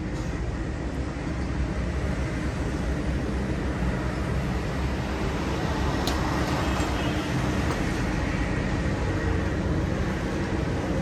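Steady low rumble of city street noise, with one sharp click about six seconds in.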